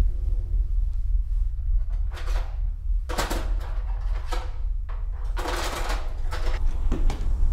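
A kitchen drawer being opened and a hand rummaging through cutlery in a plastic cutlery tray: a series of irregular rattling scrapes, strongest about three seconds in and again around five and a half seconds, over a steady low drone.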